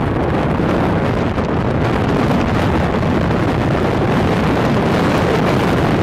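Steady wind rushing over the phone's microphone from a moving vehicle, a loud even rumble and hiss with no distinct engine note.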